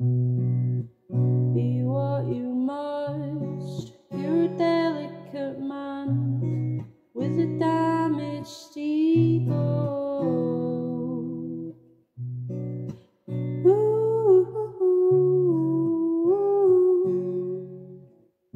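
Acoustic guitar strummed in held chords, capo on the neck, with a male voice singing a slow melody over them. The chords stop short several times, leaving brief gaps before the next one.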